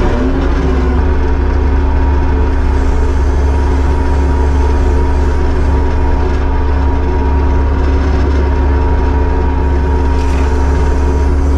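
Kubota SVL75-2 compact track loader's diesel engine running steadily at a constant pitch, with a strong low drone.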